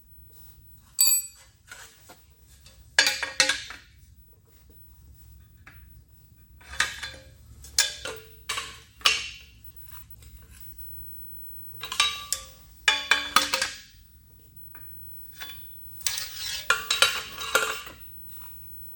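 Hand tools clinking and scraping on the metal gib adjusting screws of a Zocca 500 shaper's ram, in several short bouts with pauses between. The gib is being tightened to take up play in the ram.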